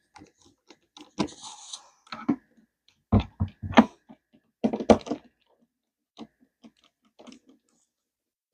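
Irregular clicks, knocks and a short scrape of door-lock hardware and screws being handled and driven with a hand screwdriver, with a few louder knocks around the middle.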